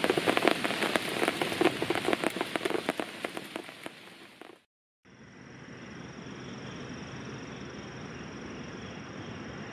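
Rain falling and pattering on rock and leaves, with many close drop impacts, fading out about four and a half seconds in. After a short silence, a quieter steady hiss with a faint high steady tone follows.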